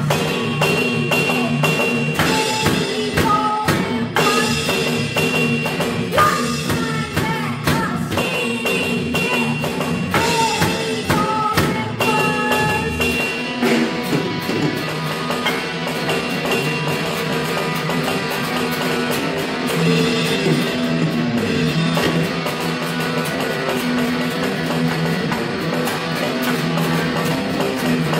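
Rock music played on electric guitar and electronic drum kit, with short high melody notes over roughly the first half.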